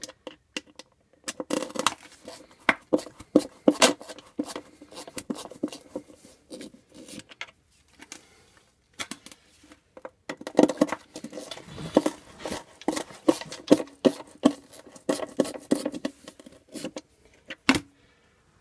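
Screwdriver turning out the screws that hold the plastic retainer over a Fisher & Paykel SmartDrive washer's spline drive: irregular clicks, creaks and scrapes of the screwdriver and screws in the plastic, with a short pause about halfway.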